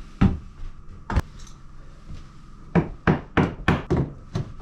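Hammer blows knocking a hardwood floorboard into place: two separate knocks, then a quicker run of about six, roughly three a second.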